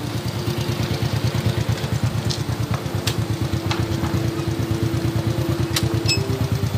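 Motor scooter engine idling close by with a fast, even pulsing, and a few sharp clicks in between.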